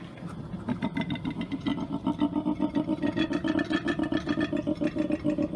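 Koala bellowing: a low, rapidly pulsing growl that grows louder about a second in.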